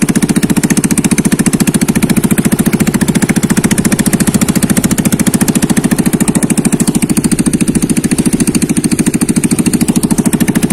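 Small single-cylinder gasoline engine of a long-tail boat running steadily at cruising speed, with a fast, even beat of firing pulses.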